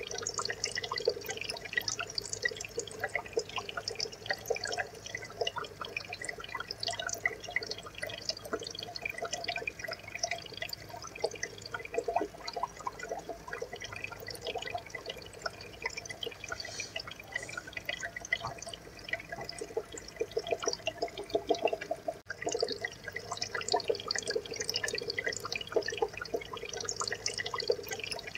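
Aquarium water trickling and bubbling: a steady, dense run of small drips and pops.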